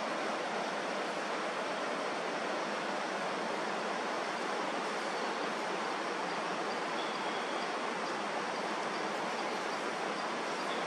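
Steady rushing of water from a nearby waterfall or creek, an even unbroken hiss. A faint, brief high whistle comes about seven seconds in and again near the end.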